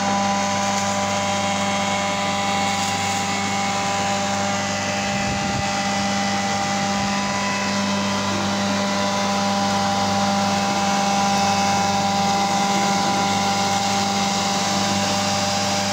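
Heavy-duty 3 HP commercial gravy machine running steadily as it grinds a wet paste, with a constant motor hum.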